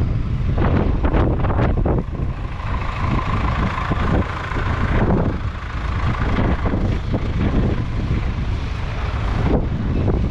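Massey Ferguson 400 combine harvester's four-cylinder diesel running steadily, with wind buffeting the microphone; a steady whine joins in for a few seconds, about two seconds in.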